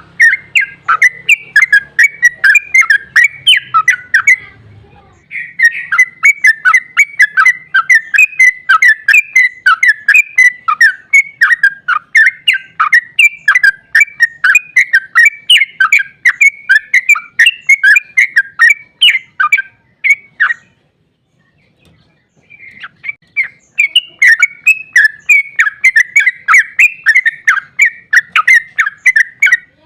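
Yellow-vented bulbul (trucuk) singing its fast chattering 'ropel' song: long runs of quick, sharp notes at about four a second, broken by a brief pause about five seconds in and a longer one about two-thirds of the way through.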